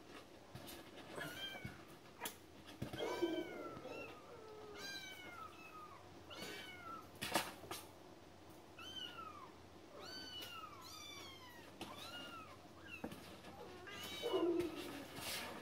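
Kittens mewing over and over: about fifteen short, high-pitched mews, each rising then falling in pitch, some overlapping. There are a few sharp clicks in between.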